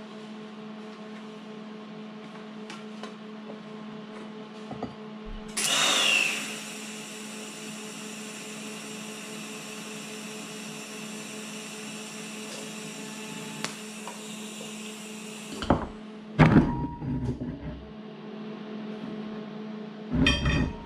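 TIG welding arc on chromoly steel tube: over a steady low hum, the arc strikes about five seconds in with a short loud burst, then runs as a steady high buzz for about ten seconds and cuts off. A few sharp metal clanks and knocks follow near the end as the work and tools are handled.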